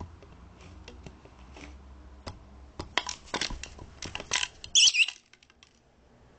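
Red lory clicking and crackling about on plastic: scattered sharp clicks that thicken into a loud run, then a short, loud squawk about five seconds in.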